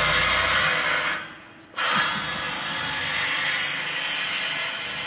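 Handheld electric drill boring through steel, the bit squealing with high steady tones over the motor. It stops about a second in and starts again after a short pause.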